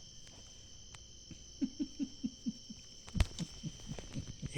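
A small animal's short low calls in quick runs of about five a second, starting about a second and a half in, broken by a single sharp knock about three seconds in. Steady high insect trilling goes on behind.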